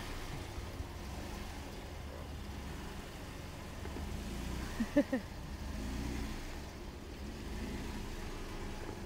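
Jeep Wrangler JK Unlimited Rubicon's 3.8-litre V6 engine running steadily at low speed as the Jeep drives slowly past up a dirt hill climb. About five seconds in come two short pitched sounds, the loudest moment.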